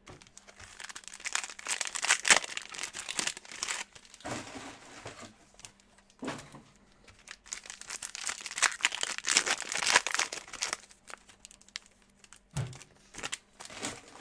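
Plastic wrapper of a trading-card pack crinkling as it is torn open and pulled off, in two long spells with short rustles between.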